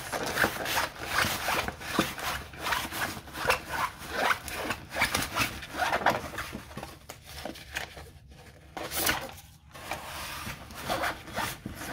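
Stiff diamond-painting canvas in its plastic film being rolled up by hand against a wooden tabletop: a rapid, irregular series of rustles and rubs, easing off briefly about eight seconds in.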